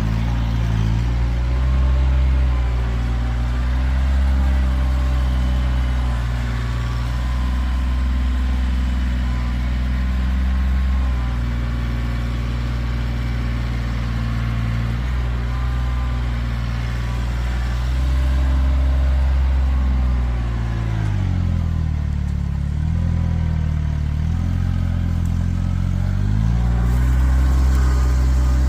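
Kioti tractor's diesel engine running under load while it pushes and grapples a heavy log. The engine note sags for several seconds about two-thirds of the way through, then climbs back up near the end.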